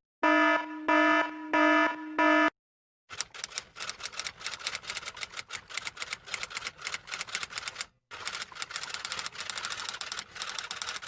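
Four short electronic beeps at a steady pace, then rapid typing clicks in two long runs with a brief pause about eight seconds in.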